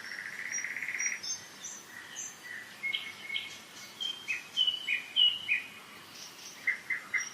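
Several songbirds singing in spring woodland: a fast trill in the first second, then a mix of short whistles and chirps, and a quick run of repeated notes near the end. Behind them is a steady hiss of a mountain river.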